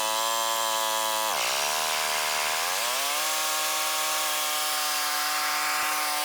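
Lawn mower engine running after a repair. Its pitch sags about a second in, as under load, climbs back over the next two seconds and then holds steady.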